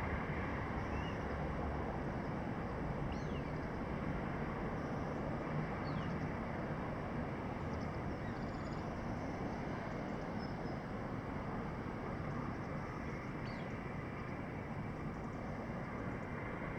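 Steady city background noise, an even traffic-like hum and hiss, with a few faint, short downward-sliding bird calls every few seconds.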